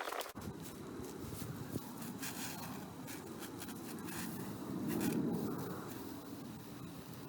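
Repeated scrubbing strokes on the surface of a stone grave marker, swelling a little louder about five seconds in.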